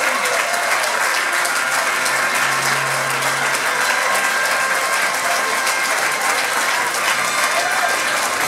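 Large crowd applauding: steady, dense hand clapping that doesn't let up.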